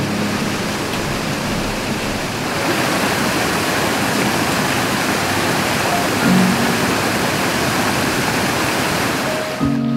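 Fast-flowing mountain creek rushing over rocks: a steady wash of water noise that grows a little louder about two and a half seconds in.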